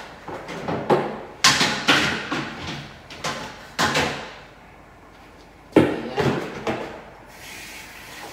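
Plastic containers knocked and clattered on a bathroom sink counter as they are handled, in several clusters of sharp knocks. Near the end a steady hiss begins: a tap starting to run.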